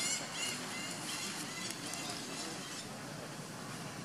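Short, high-pitched animal calls repeat and fade out about two seconds in, over steady outdoor background noise.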